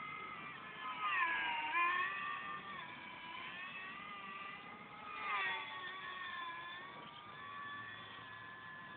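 Radio-controlled Snoopy Red Baron model plane's motor and propeller whining overhead, the pitch rising and falling as the throttle and distance change. The whine cuts out near the end.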